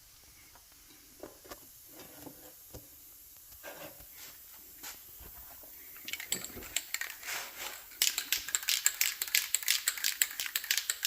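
Aerosol can of crack-detection developer being shaken, its mixing ball rattling quickly inside, with a few faint handling clicks before it. The rattle starts about six seconds in and grows much louder about eight seconds in.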